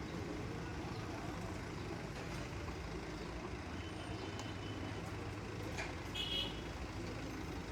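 Diesel engine of a Case 770 EX backhoe loader running steadily under work, with a short high squeal just after six seconds in.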